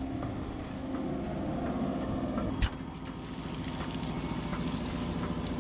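Suction pump running steadily as it draws liquid ballast out of a tractor's rear tire. About two and a half seconds in comes a single sharp, loud pop as the suction pulls the tire's bead off the rim.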